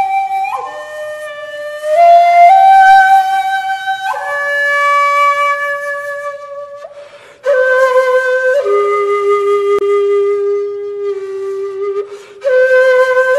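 Solo shakuhachi, the Japanese end-blown bamboo flute, playing a slow melody of long held notes that step from one pitch to the next. The phrases break off briefly about seven seconds in and again near the end.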